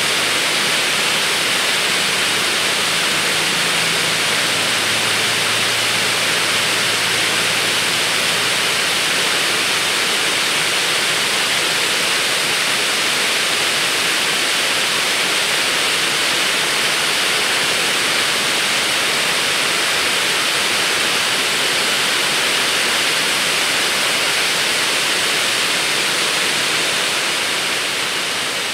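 A steady, even hiss, like static or rushing water, with a faint low hum in the first several seconds.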